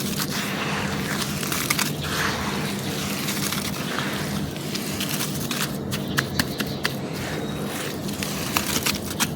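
Dry, brittle material being crushed and crumbled: continuous crunching with many sharp cracks.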